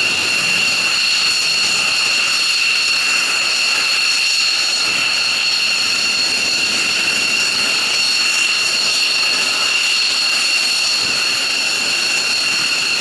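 F-15J fighter's twin F100 turbofan engines idling on the ground: a steady high-pitched jet whine made of several held tones over a rushing hiss, unchanging throughout.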